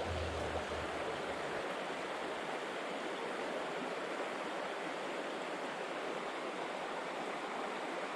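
Mountain stream water rushing over rocks, a steady even rush.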